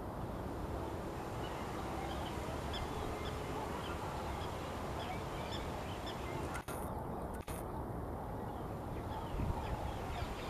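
Faint, scattered short bird chirps over a steady outdoor background hiss.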